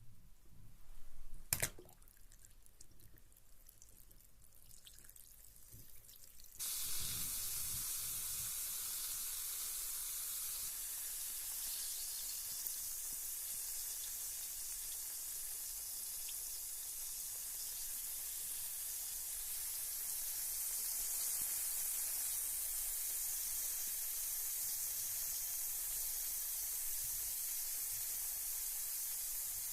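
Water dripping with a sharp knock about a second and a half in, then about six seconds in a carbonated bath bomb's steady fizzing hiss starts suddenly and carries on as the tablet dissolves in the bath water.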